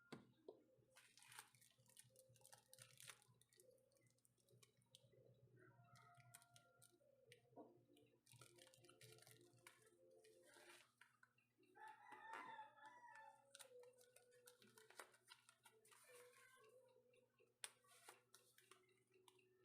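A rooster crowing once, faint and distant, about twelve seconds in, over near silence with scattered light clicks and taps.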